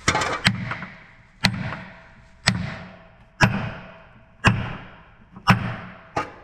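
Hammer blows driving out a seized pin from a tractor's housing, struck steadily about once a second. Each blow gives a sharp metallic bang with a short ring after it.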